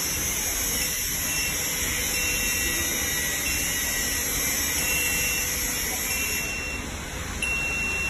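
Automatic ear loop welding machine running after being started: a steady hiss with a short high beep repeating about once a second. The upper part of the hiss cuts out about six and a half seconds in.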